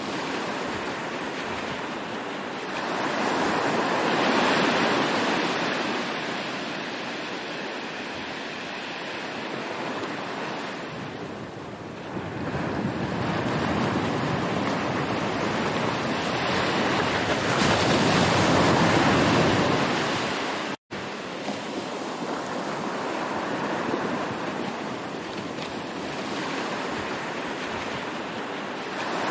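Sea waves washing in, a continuous surf that swells and ebbs every several seconds, with a split-second gap of silence about two-thirds of the way through.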